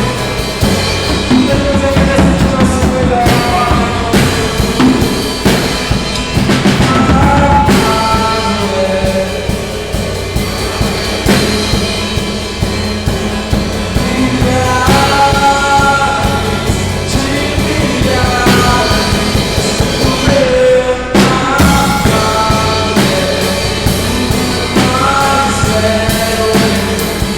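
Live worship song: a singer with acoustic guitar over a Dolphin drum kit keeping a steady beat on kick, snare and cymbals. About 21 seconds in the band breaks off briefly, then comes back in.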